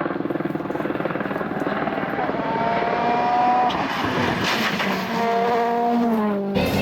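Rally car engine running hard, its note holding, then stepping and drifting in pitch as the car accelerates and changes gear. The note drops sharply just before the end.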